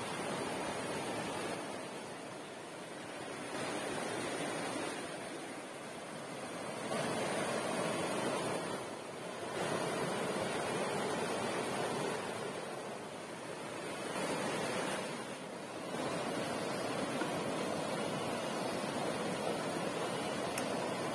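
Fast-flowing river rushing over rocks: a steady hiss of moving water that swells and dips a little every few seconds.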